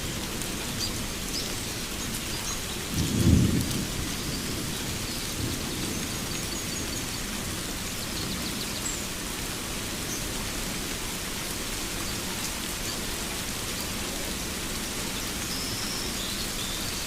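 Steady rain falling, with a short low rumble of thunder about three seconds in, the loudest moment, and a weaker rumble a little after. Faint bird chirps come through high above the rain.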